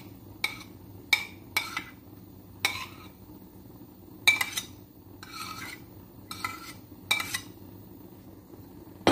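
A spoon scraping and knocking against a plate and the rim of a steel pan as cheese is pushed into the pan: about a dozen short, irregular scrapes and taps.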